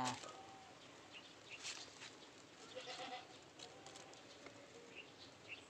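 Faint rustling and clicking of a plastic fruit bag as a guava is handled on the tree, with a few short, faint animal calls in the background.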